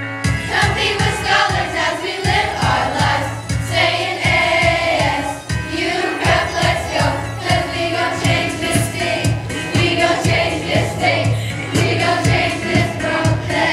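Middle-school choir singing a pop song together over accompaniment with a steady beat.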